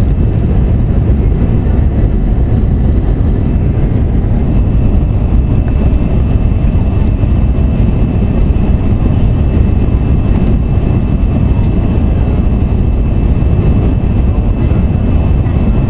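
Steady cabin noise inside a CRJ-200 regional jet in flight: the even roar of airflow and its two rear-mounted turbofan engines, with faint thin high tones above it.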